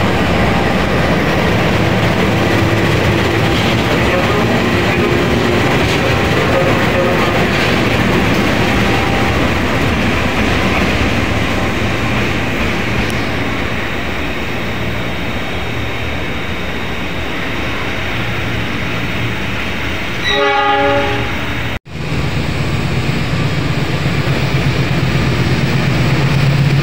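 KAI CC 206 diesel-electric locomotives passing through a station: a steady diesel engine drone with the rumble of wheels on rail. About twenty seconds in a locomotive horn gives a short blast. After a brief cut-out a deeper, louder engine drone comes in as a locomotive-hauled passenger train approaches.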